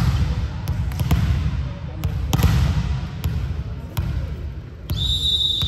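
Irregular sharp knocks of a volleyball and players' feet on a sports-hall floor, echoing over a low steady hall rumble. About five seconds in, a steady high-pitched tone starts and holds.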